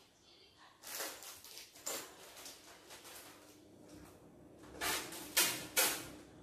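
Clear plastic packaging bag being handled, crinkling and rustling in irregular bursts, with the loudest crackles near the end.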